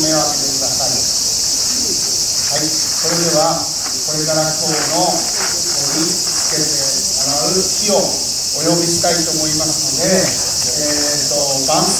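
A steady, high-pitched chorus of insects, crickets by their sound, runs without a break, with people's voices talking underneath it.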